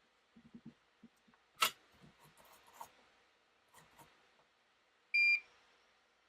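Light taps and clicks of tools on a repair bench, with one sharp click about a second and a half in, then a single short electronic beep near the end.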